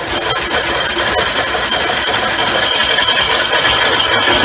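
A homemade compressed-air engine running, with two pneumatic cylinders driving a large steel ring rotor. It gives a rapid, even clicking over a steady hiss.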